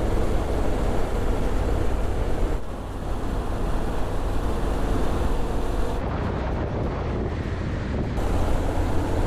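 Honda X-ADV 750 motorcycle's parallel-twin engine running on the move, under heavy wind rumble on the microphone.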